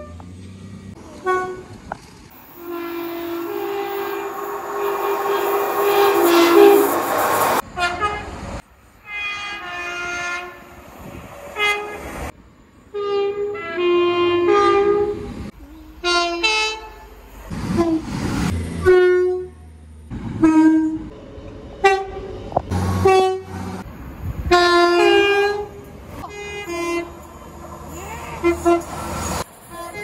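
British passenger train horns sounding many short blasts, often two notes in turn, one after another. Near the start a train runs by with loud rushing noise under the horn for several seconds, which cuts off suddenly.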